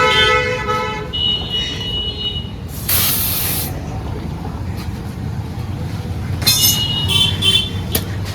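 A short blast of compressed air from a tyre-inflating air hose, about three seconds in, over a steady low rumble of traffic. High steady tones sound at the start and again near the end.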